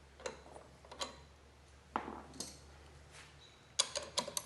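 Separate metallic clicks, then a quick run of ratchet-wrench clicks near the end as a 13 mm nut is tightened.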